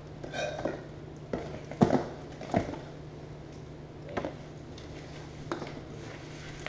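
Handling noise from unpacking a CCTV kit: rustling and a handful of short, sharp knocks as cables and cameras are lifted out of a cardboard box. A steady low hum runs underneath.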